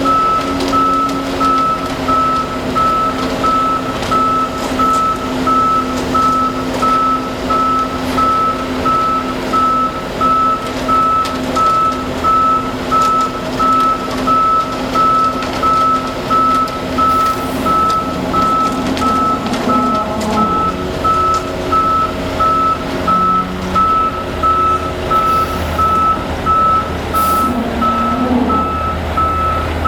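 Concrete mixer truck's reversing alarm beeping steadily, about once a second, over the truck's running diesel engine.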